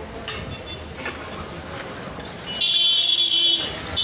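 A high-pitched horn blares for about a second, starting about two and a half seconds in, over a steady street background. A single sharp knock comes about a third of a second in.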